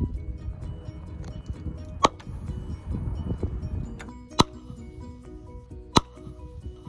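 Background music with three sharp pops, the first about two seconds in: a film-canister fizzy rocket blowing off its lid as the gas from baking soda and vinegar builds pressure inside and releases suddenly.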